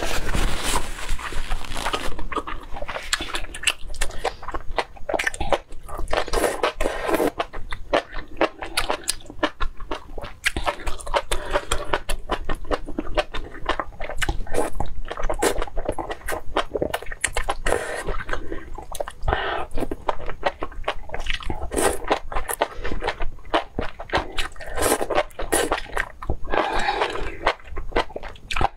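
A person eating close to the microphone: chewing and biting, a dense run of quick clicks and crunches.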